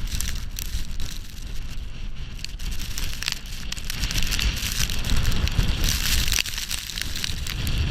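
Blizzard wind buffeting the microphone, with a heavy rumble and a hiss of blowing snow that grows louder about halfway through.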